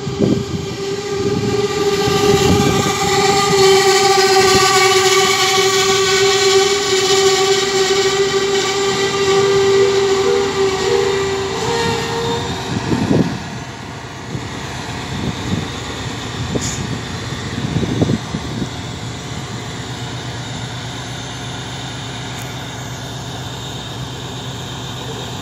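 SA131 diesel railbus braking into the platform, its brakes squealing in one long steady high tone that rises slightly and cuts off about twelve seconds in as the train stops. After that the engine idles with a steady hum, with a few thumps.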